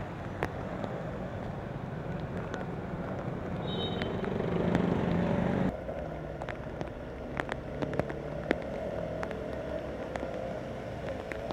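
Motorbikes, cars and an auto-rickshaw driving through a flooded street: engines running under the steady wash and splash of tyres through standing water, with scattered sharp clicks. It grows louder for a couple of seconds, then drops abruptly about halfway through.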